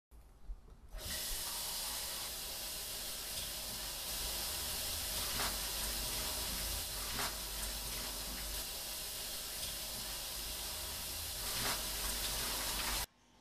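Steady rushing hiss of running water, beginning about a second in and cutting off suddenly near the end.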